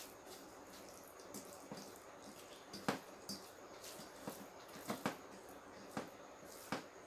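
Eating rice by hand from steel plates: faint wet clicks and smacks as fingers mix the rice with curry and food is chewed. About half a dozen sharper clicks fall in the second half.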